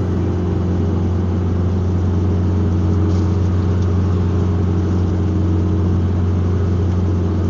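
Steady drone of a van's engine and road noise heard from inside the cabin while driving, a constant low hum with no change in pitch.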